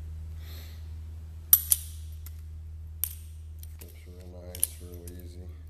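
FU42 balisong (butterfly knife) being flipped: a few sharp metallic clacks as the handles swing shut against each other and the blade, two in quick succession about a second and a half in, then single clacks spaced out after. A nice "clackety clack" from a tight-toleranced knife with no handle play.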